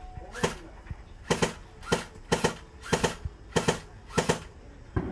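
Airsoft pistol firing tracer BBs: a string of about seven sharp shots, irregularly spaced, roughly one every half second to a second.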